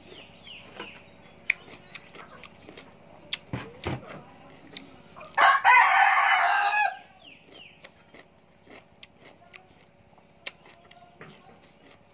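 A rooster crows once, a single call of about a second and a half, starting about halfway through. Around it are small clicks and smacks of someone eating raw vegetables by hand.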